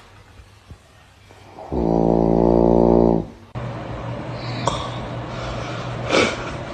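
One long, loud snore lasting about a second and a half, about two seconds in. After an abrupt cut comes a steady low hum, with a click and then a short noisy burst near the end.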